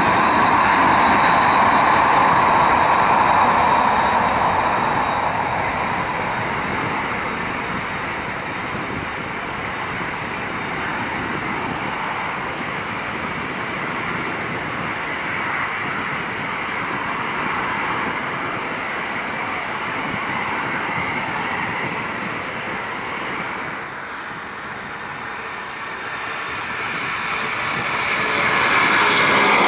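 Boeing 767-300's Rolls-Royce RB211 jet engines at takeoff thrust: a loud roar with a high whine that fades as the aircraft rolls away down the runway, then swells again near the end as it lifts off and climbs out.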